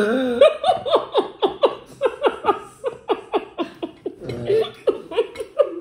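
A woman laughing hard: a long run of quick ha-ha-ha's, about four a second.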